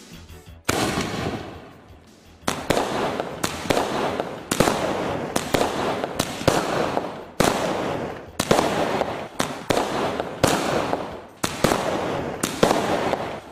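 A 12-shot aerial firework cake firing its tubes one after another, about a dozen shots at roughly one a second. Each shot is a sharp bang trailing off into a crackling hiss as it bursts.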